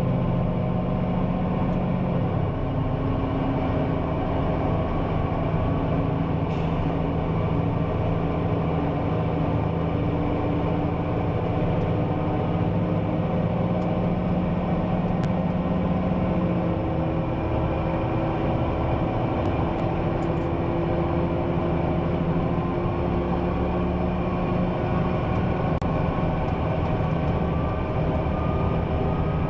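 Tractor diesel engine running steadily while driving, heard from inside the cab, its note shifting a little a few times as engine speed changes.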